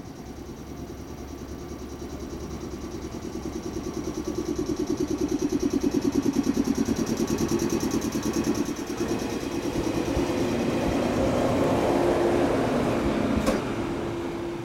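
A JR East 107 series electric train running by, its sound building to a peak and dropping away after a sharp click near the end, with a rapid, even pulsing tone over it in the first half.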